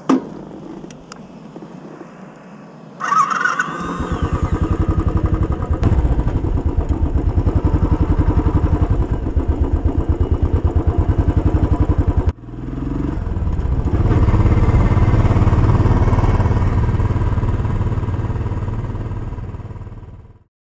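2019 Royal Enfield Classic 500's single-cylinder engine started by its electric starter about three seconds in, catching and running with a fast, even pulsing beat as the bike rolls along a dirt track. About twelve seconds in the sound breaks off and comes back deeper and fuller, then fades out near the end.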